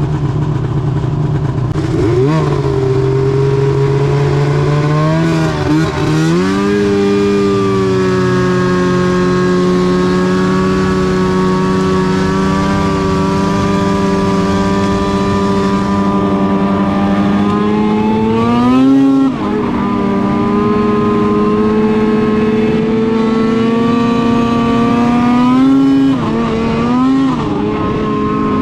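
Arctic Cat M8 snowmobile's 800 cc two-stroke twin running under throttle while riding. Its pitch climbs in the first few seconds, holds steady for long stretches, and briefly drops then climbs again about two-thirds through and near the end as the throttle is eased and reapplied.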